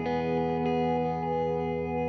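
Slow background music: guitar chords with a chorus-like effect, ringing out long, with a new chord struck right at the start.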